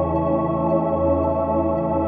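Background music of sustained, held chords with no changes.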